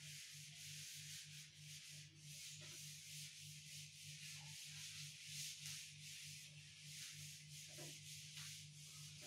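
A cloth wiping chalk off a chalkboard: faint, quick back-and-forth rubbing strokes.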